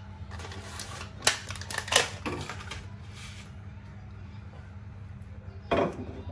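Small frying pan of oil being tilted and moved on a gas stove's metal grate: a run of scraping clicks and rattles with two sharp clacks, then one more knock near the end as it is set down, over a steady low hum.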